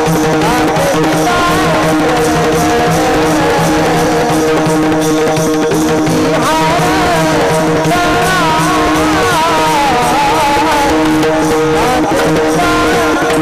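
Varkari devotional singing: a voice in a long wavering, ornamented line over a steady drone, with pakhawaj drum and a regular beat of small cymbals.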